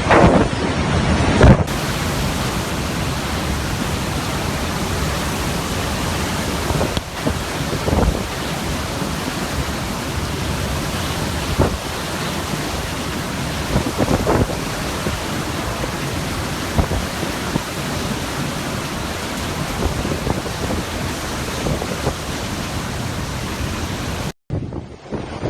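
Hurricane-force wind with driving rain, a loud steady rushing noise buffeting the microphone, rising in a few sharper gusts. The sound cuts out briefly near the end.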